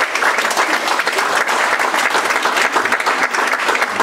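Theatre audience applauding: many hands clapping in a dense, steady wash at full strength.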